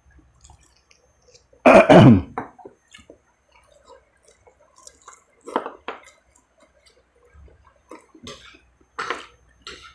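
A man clearing his throat loudly once, about two seconds in, followed by quieter short mouth sounds as he eats with his hands.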